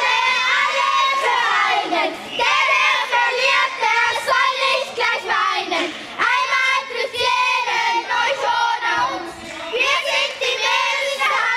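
Young girls' voices singing a chant together, in several long phrases with short breaks between them.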